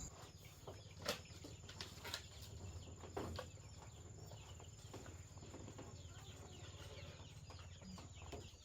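Faint clucking and stirring of chickens, with a few soft knocks and a steady high insect trill.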